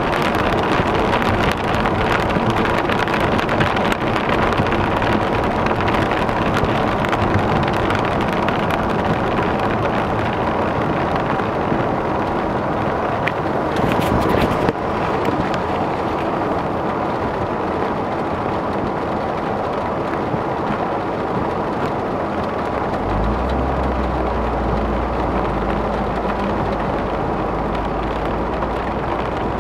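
Steady noise of heavy rain and wet-road driving heard from inside a moving car: rain on the car's body and windshield and tyres on the flooded road. A deeper low rumble comes in about three-quarters of the way through.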